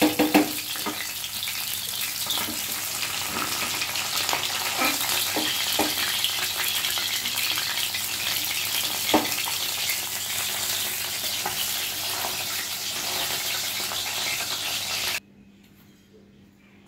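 Tilapia pieces frying in hot mustard oil in a metal kadai, a steady sizzle with a few sharp knocks and scrapes of a metal spatula against the pan as the pieces are lifted out. The sizzle cuts off suddenly about a second before the end.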